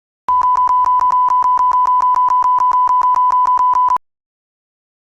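Electronic 1 kHz beep tone from a computer's audio output, held for almost four seconds and cut by rapid clicks about eight times a second, then cutting off abruptly.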